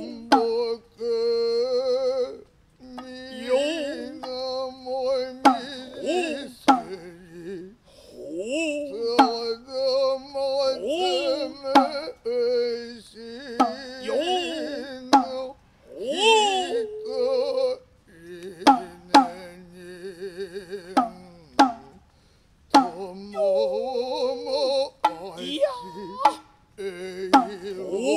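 Noh chanting (utai) by a male voice in long, wavering sung notes, accompanied by a kotsuzumi shoulder drum whose sharp single strikes fall every second or two between and across the phrases.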